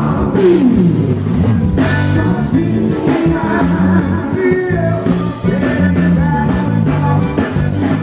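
Live forró band music: a woman singing into a microphone over accordion and a full band.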